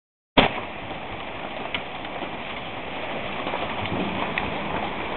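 Hailstorm with heavy rain: a dense, steady hiss of downpour with a few sharper ticks of hailstones striking scattered through it.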